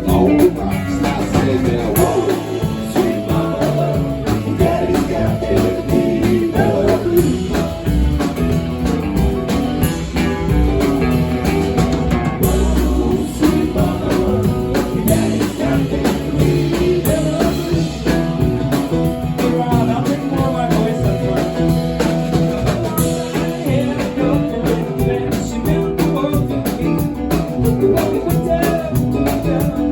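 A live band plays blues-rock, with guitar and a singing voice.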